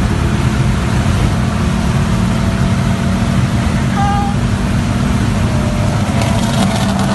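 Car engine running at a steady speed with road and wind noise, heard from inside the moving car's cabin; the engine holds one constant pitch, with no revving.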